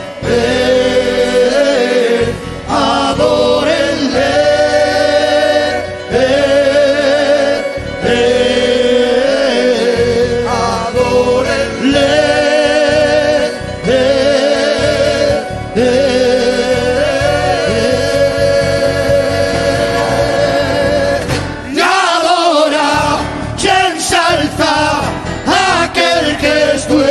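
A church choir singing a slow worship song over instrumental accompaniment, in long held notes with strong vibrato. About three quarters of the way through, the singing breaks into shorter, quicker phrases.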